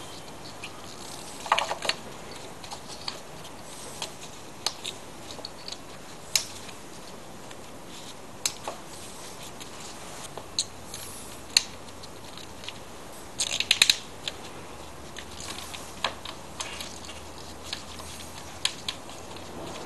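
Scattered sharp clicks and clinks of hand tools and ignition parts being handled in an engine bay while spark plugs and ignition coils are refitted, with quick clusters of clicks about a second and a half in and again around thirteen to fourteen seconds in.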